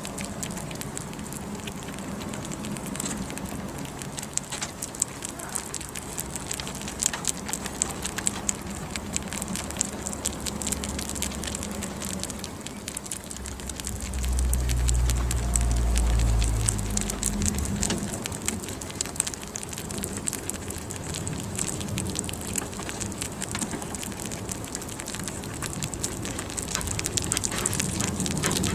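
Several young rabbits nibbling a peeled banana close to the microphone, a dense run of small wet clicks and crackles from their mouths. A low rumble comes in from about halfway through and lasts three seconds or so.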